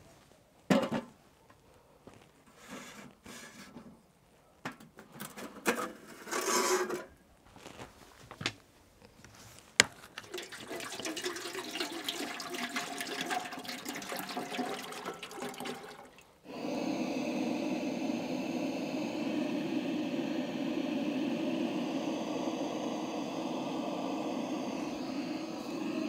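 Knocks and clatter as a stainless samovar is set down and handled, then water pouring from a plastic bottle into the samovar. From about 16 seconds in, a handheld butane torch runs with a loud steady hiss as it lights the samovar's firebox.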